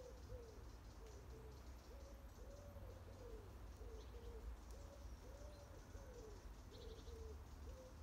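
A pigeon cooing faintly, low soft coos in a short phrase that repeats about every three seconds.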